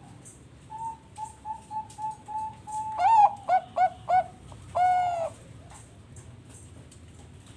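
Bangkok-type zebra dove (perkutut) singing its song. A run of about seven short, soft notes leads into four loud, dipping coos and one longer closing coo.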